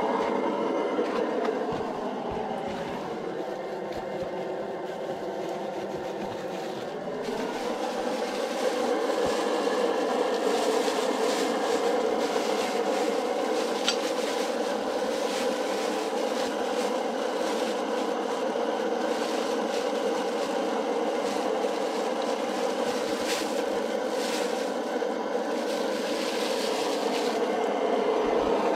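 Pressurised liquid-fuel camping stove burning steadily under a covered pot, a continuous rushing hiss. It dips a little about two seconds in and comes back up around seven seconds.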